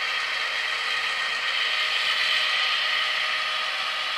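HO-scale model freight train rolling along the track: a steady mechanical whir and clatter of the cars' metal wheels on the rails and the locomotives' drive gears.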